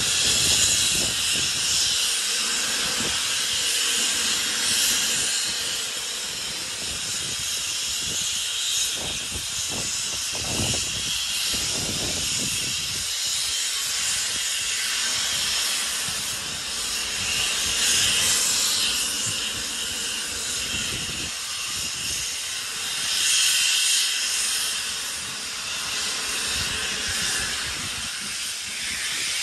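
Steam locomotive giving off a steady hiss of escaping steam that swells and eases a few times, over a low irregular rumble.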